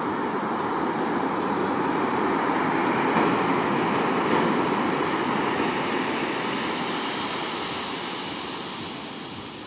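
Ocean surf breaking and washing up a sand-and-pebble beach: a long rush of noise that swells to a peak about three to four seconds in, then slowly fades.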